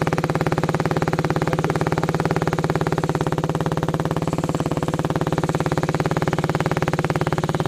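Dual-sport motorcycle engine idling steadily, with a fast, even pulse.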